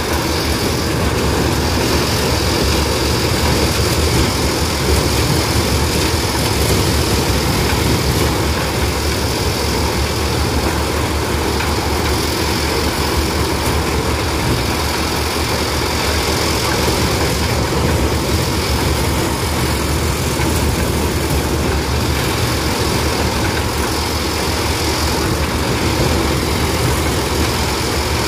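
Tractor-driven maize sheller running steadily, the tractor engine and the machine's threshing drum making one continuous mechanical noise.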